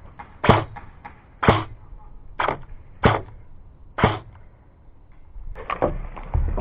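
Airsoft rifle firing five single shots, each a sharp crack, roughly a second apart, followed near the end by a quick cluster of knocks and rustling.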